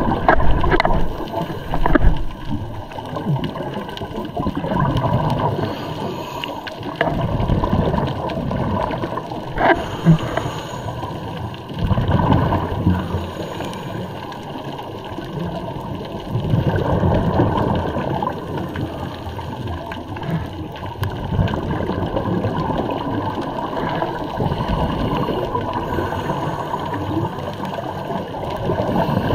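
Scuba regulator breathing heard underwater through a camera housing: exhaled bubbles gurgling in swells every few seconds.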